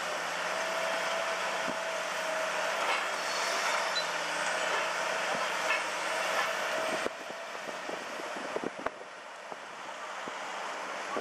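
Liebherr 954 demolition excavator's diesel engine and hydraulics running steadily with a faint whine. About seven seconds in the sound drops abruptly, and a series of sharp knocks from concrete and debris follows.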